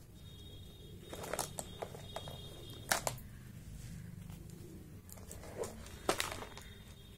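Handmade jewellery being handled and picked up: rustling with a few sharp clicks and knocks of beads and pendant pieces. The loudest click comes about three seconds in and another cluster about six seconds in, over a steady low hum.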